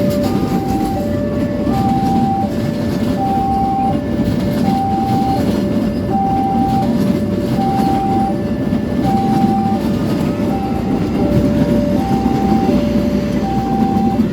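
Train running through a railway level crossing, a steady rumble of wheels and cars, under the crossing's warning alarm: two alternating tones, high and low, repeating about once a second.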